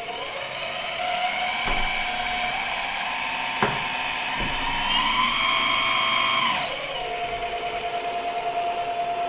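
Electric hydraulic pump of a 1/14-scale Premacon Liebherr 956 model excavator whining steadily. From about a second in it rises in pitch and works harder under load as the machine shows its power, peaking just before it drops back to its steady idle whine about two-thirds of the way through. There are a few light knocks.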